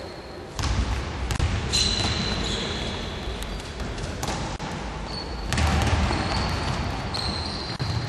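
Basketball game sounds on a hardwood court: the ball bouncing and players moving. A burst of louder noise comes in about half a second in, and again a little past the middle.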